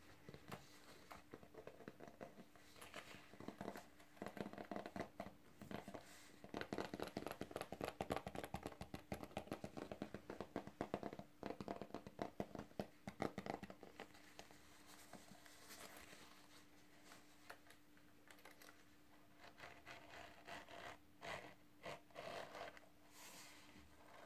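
Long fingernails scratching and tapping over a textured, snakeskin-embossed zippered pouch, a dense run of quick strokes that is heaviest and loudest in the middle. Near the end, fingers handle the pouch's metal zipper pull.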